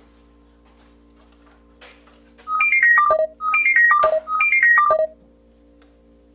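Mobile phone ringtone: a short falling electronic melody played three times, over a faint steady hum.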